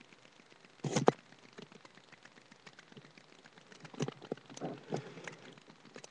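A cat bumping and rubbing its face against the webcam, scuffing and knocking right at the microphone, with a louder bump about a second in and a cluster of knocks and rubs about four to five seconds in.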